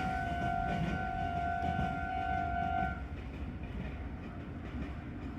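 Japanese level crossing's electronic warning bell ringing its steady "kan-kan" tone, which cuts off about three seconds in as the crossing clears. Underneath, the rumble of a passing Meitetsu train goes on and slowly fades.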